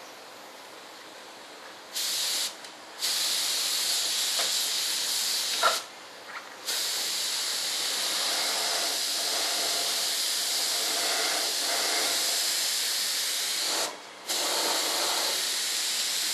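Gravity-feed paint spray gun, run on compressed air, hissing as it sprays paint in long blasts. It starts about two seconds in and stops briefly three times between blasts.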